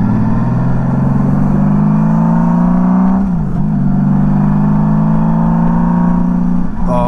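1999 Honda Valkyrie F6C's 1500cc flat-six engine accelerating, its pitch climbing steadily through a gear. It drops at an upshift about three seconds in, then climbs again through the next gear, with another dip at a shift near the end.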